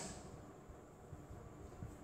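Near silence: faint room tone with a low hum, between spoken phrases.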